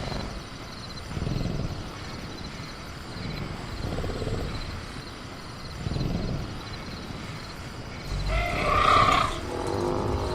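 Sound-effect velociraptor growling low in repeated rumbles about every two seconds, then a louder, higher-pitched creature call near the end. Crickets chirp faintly and steadily underneath.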